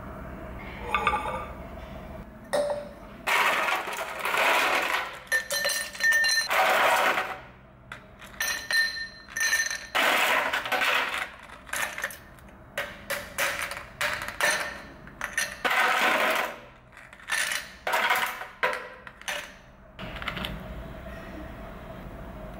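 Ice cubes scooped with a plastic scoop from a plastic tub and dropped into a glass jar, clattering and clinking against the glass in many quick strokes. The clatter starts a couple of seconds in and stops near the end.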